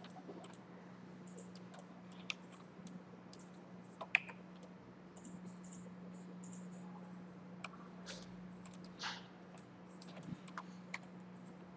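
Faint, irregular mouse clicks and computer keyboard keystrokes, with one sharper click about four seconds in, over a steady low hum.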